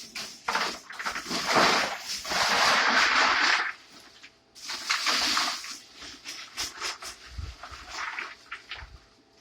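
Bag of ice poured into the tub of a homemade coil-and-fan air cooler: a long rush of ice going in for about three seconds, a second shorter pour about five seconds in, then scattered clinks and knocks as the ice settles.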